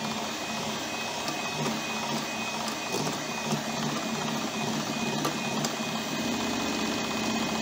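Electric hand mixer running steadily, its beaters whipping cream cheese frosting in a bowl: a steady high motor whine over a low hum, with a few light ticks.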